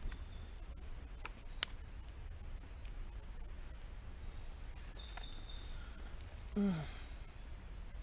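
Steady high-pitched chorus of night insects, with a couple of faint clicks early and, about two-thirds of the way through, a short low voice sound falling in pitch, like a sigh or hum.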